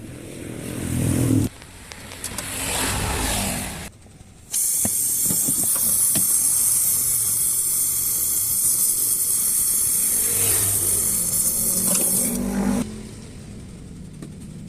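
Compressed gas blowing through refrigerator tubing during flushing: two short gusts, then a long steady hiss of several seconds that cuts off suddenly.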